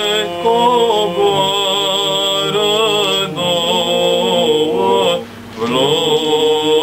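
Male vocal group singing a Romanian Christmas carol (colindă) a cappella, a melody moving over a steadily held note, with a short break for breath about five seconds in.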